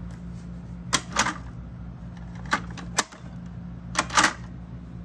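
Irregular sharp clicks and knocks, about six in all, some in close pairs, over a steady low electrical hum.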